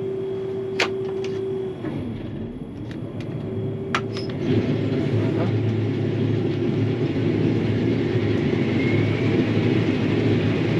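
Combine harvester running, heard from the cab: a steady hum whose pitch sags and recovers about two seconds in, with a couple of sharp clicks. About four seconds in the machine grows louder and rougher and stays that way.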